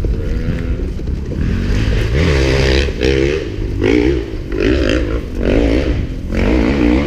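Dirt-bike engine revving hard in repeated throttle surges, about one a second, as it works up a steep hill climb.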